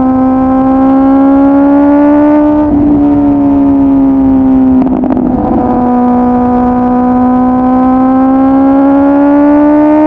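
Kawasaki ZX-10R's 1000cc inline-four with a full aftermarket exhaust, running at high revs under load on the motorway: a steady engine note that slowly rises in pitch, broken briefly about three seconds in and again about five seconds in, over a low rush of wind noise.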